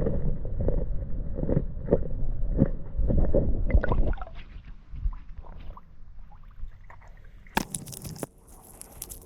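Squishing and sloshing water with repeated soft thumps about twice a second over a low rumble, loudest in the first four seconds, then quieter scattered knocks and a sharp rustle near the end.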